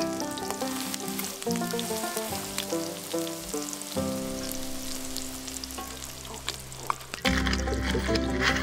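Food frying with a steady sizzle and crackle, under instrumental background music. The noise jumps suddenly louder about seven seconds in.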